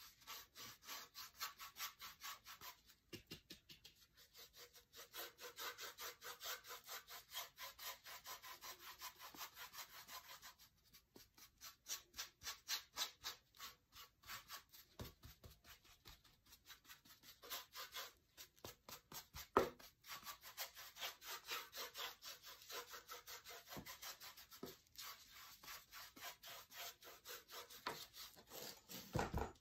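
Paintbrush dabbing and stroking paint onto a lamp base in quick, repeated scratchy strokes, building up a textured finish, with a couple of brief pauses.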